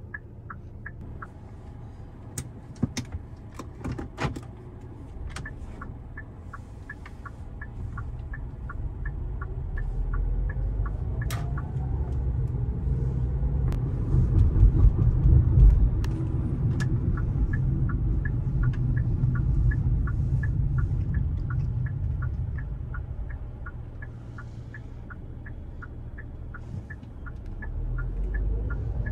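2021 Hyundai Elantra's 2.0-litre four-cylinder engine and road noise heard inside the cabin, growing louder as the car accelerates, at its loudest a little past the middle, easing off and picking up again near the end. A turn-signal indicator ticks steadily at about three ticks a second in the first part and again through the second half, and a few sharp clicks come in the first few seconds.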